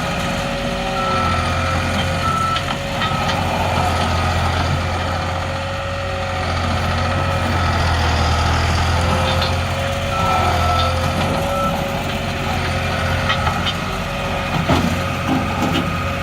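New Holland LS180 skid steer loader running under operation, its engine steady with a wavering whine over it. A high-pitched backup alarm sounds on and off, and there are a few clanks near the end.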